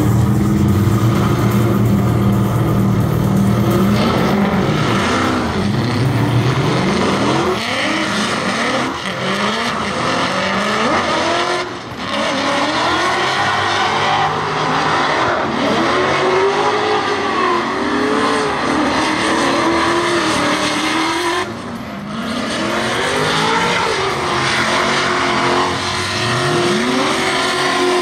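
Drift cars' engines running at the start line, then revving hard: the BMW's engine rises in pitch and swings up and down as it is held on and off the throttle through a slide, over the hiss and squeal of spinning, smoking tyres.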